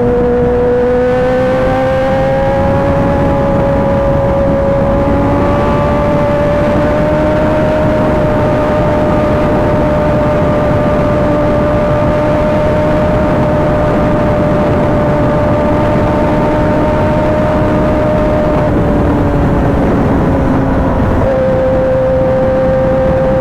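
Kawasaki ZX-10R's inline-four engine running at steady revs on the move, its pitch rising slowly over the first few seconds, holding, then easing off and settling again near the end, over a constant rush of noise.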